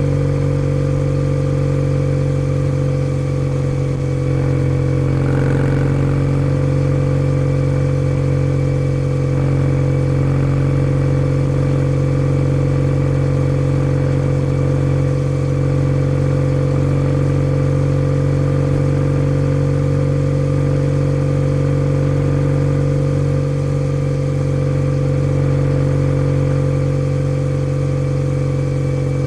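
Kawasaki W650 air-cooled parallel-twin engine running through an aftermarket POSH W1 full exhaust, holding a steady engine speed with no revving up or down.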